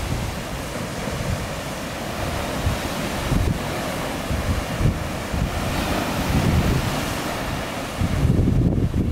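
Ocean surf breaking and washing against the rocky shore where lava flows into the sea, with wind buffeting the microphone. The noise swells and falls with each wave, the heaviest surge coming near the end.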